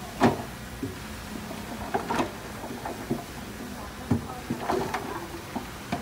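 Rocky soil and stones sliding out of a tipping dump truck bed: irregular knocks and thuds as rocks tumble onto the pile, about a dozen over the few seconds, over the steady running of the truck's engine.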